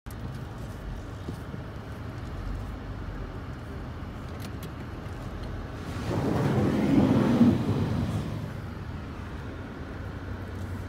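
Car engine running at a low, steady hum as the car creeps forward, heard from inside the cabin. About six seconds in, a louder rush swells up and fades away again within two seconds.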